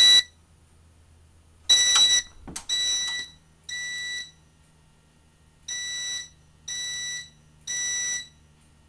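Fire alarm horn strobes sounding the temporal (code-3) evacuation pattern in alarm, set off by the pull station. Three half-second electronic tones, a pause of about a second and a half, then three more. The first tone of the first group is the loudest.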